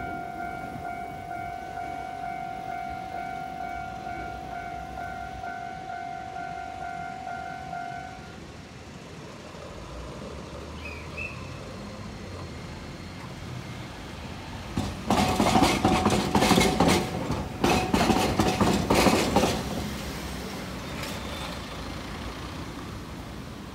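A Japanese level-crossing warning bell rings in a steady repeating electronic tone and stops about 8 seconds in. Later, for about five seconds, a streetcar's steel wheels clatter loudly over the right-angle diamond crossing, a quick run of sharp knocks.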